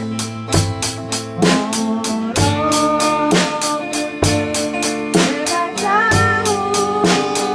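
Background music: a song with a steady drum-kit beat, bass and a sung melody.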